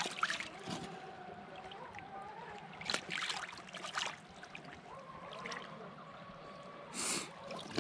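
Water splashing and sloshing as a hand rinses a cleaned trout in shallow lake water at the shore: a few short splashes, the loudest about three seconds in and near the end, over a faint steady hum.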